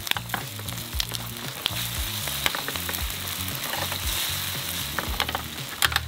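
Food sizzling in a hot frying pan while being stirred, with a steady hiss and scattered sharp clicks of a utensil against the pan. A bass line of background music plays underneath.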